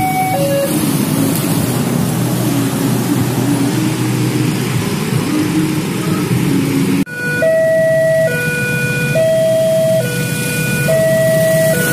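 Railway level-crossing warning alarm, an electronic two-tone chime alternating between a lower and a higher note about once a second, warning of an approaching train, heard over the engines of many passing motorcycles. About seven seconds in the sound cuts abruptly, and the two-tone alarm then stands out clearly with much less traffic noise.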